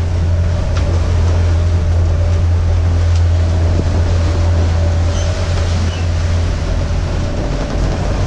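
Steady low drone of a sailing catamaran underway in heavy seas, heard inside its cabin, with an even rush of water and wind around the hull.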